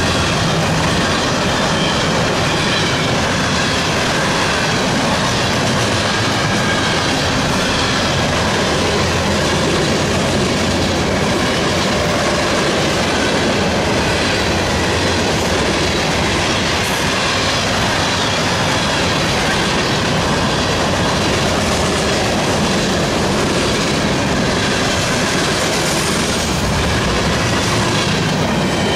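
CSX freight train's cars rolling past, their steel wheels on the rails making a steady, loud running noise.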